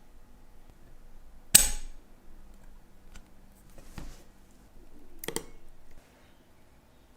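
Small metal watchmaking tools and parts clicking and tapping on a workbench. One loud, sharp snap comes about one and a half seconds in, followed by a few lighter taps and a quick double click.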